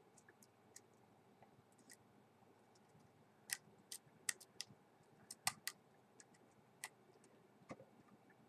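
Faint, irregular clicks of a hook pick working the pins of a six-pin pin-tumbler lock during single-pin picking, with a run of sharper clicks in the middle.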